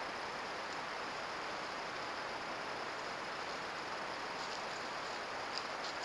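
Steady, even hiss with no pattern, the self-noise of a trail camera's microphone, with a few faint high ticks near the end.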